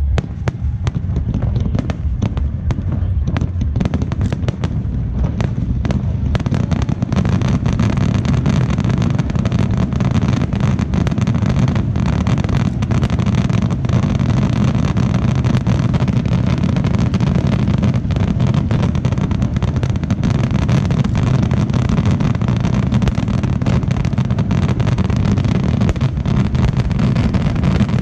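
Barrage of aerial firework shells bursting. Separate bangs in the first few seconds merge into a dense, unbroken run of booms and crackle over a deep rumble.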